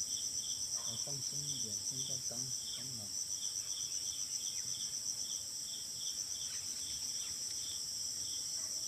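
A chorus of insects calling: a steady high-pitched trill, with a lower chirp pulsing about two to three times a second.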